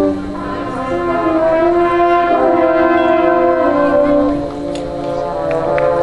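High school marching band's brass section playing slow, sustained chords. The sound eases just after the start and swells again toward the end.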